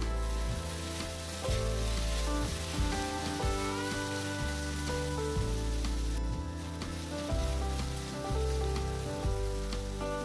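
Food sizzling as it fries in hot oil, with a steady hiss that thins briefly a little after six seconds, over background music.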